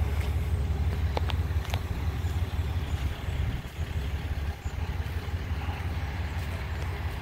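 Low, fluttering rumble of wind buffeting an outdoor microphone, with a few faint clicks.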